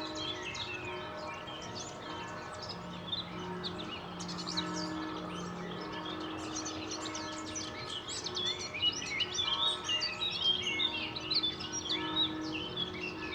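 Distant church bells ringing, their long humming tones swelling and fading under a dense chorus of chirping songbirds that grows busier about two-thirds of the way through, over a low city hum.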